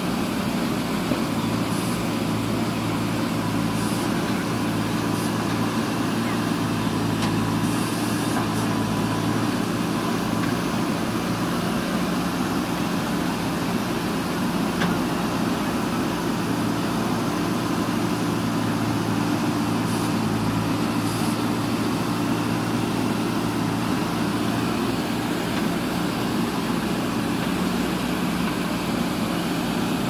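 Diesel engine of a JCB 3DX backhoe loader running steadily under load while the backhoe arm digs, a continuous even drone.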